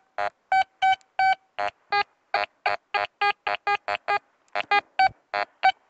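Metal detector beeping rapidly as its search coil is swept over the ground: short electronic beeps about four a second, in two different tones. These are the many signals this ground gives, most of them false tones according to the detectorist.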